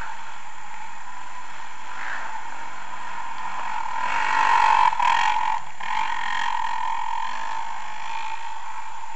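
Dirt bike engine approaching through the trees, rising and falling in pitch with the throttle. It passes close and loudest about four to five seconds in, then carries on more quietly as the bike climbs away, over a steady high hum.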